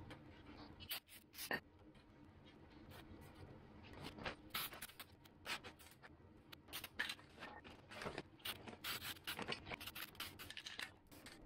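Quiet scattered rubbing and scratching of a cloth wiping down a sheet-metal VW Beetle heater channel section, then short hissing bursts from an aerosol spray can coating it, most of them in the second half.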